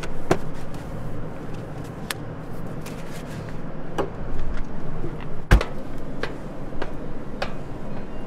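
Steady low background hum with scattered light clicks and knocks, and one heavier thud about five and a half seconds in.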